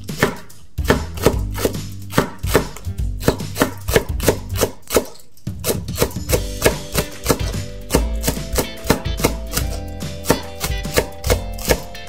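Kitchen knife slicing a leek into thin rounds on a wooden cutting board: a steady run of sharp knife strikes against the board, about three a second, with a brief pause near the middle.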